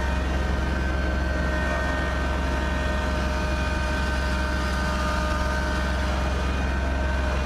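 Kubota BX2680 compact tractor's three-cylinder diesel engine running steadily under load, a low even drone with a steady whine on top, heard from inside the tractor's cab.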